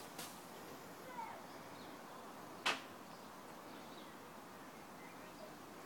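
Faint outdoor background with a single sharp click a little under halfway through.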